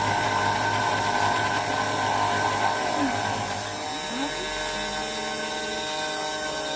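CNC 3018 Pro desktop router milling an acrylic block. The spindle motor gives a steady whine, and the drive motors make short sweeps up and down in pitch as the axes move.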